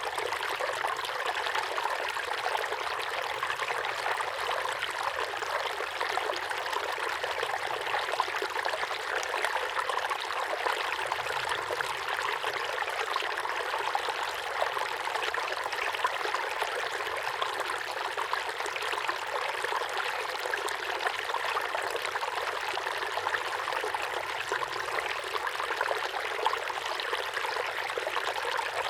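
Small waterfall pouring steadily into a pond: continuous splashing and trickling of falling water.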